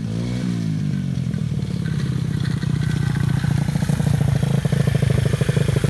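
KTM 350 four-stroke single-cylinder dirt bike engine running under throttle, its pitch dipping briefly near the start, then holding steady and growing louder before cutting off abruptly at the end.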